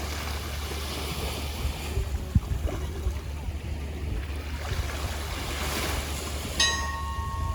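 Steady rushing noise of wind and surf with a low rumble. A ringing tone starts near the end.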